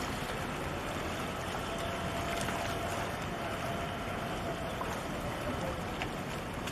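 Steady rushing wind and water noise at the harbour's edge as a container ship passes, with a faint thin tone through the middle that sags slightly near its end.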